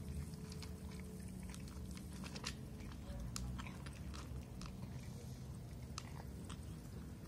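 Two cats crunching dry kibble, a run of short, irregular crisp crunches, over a low steady hum.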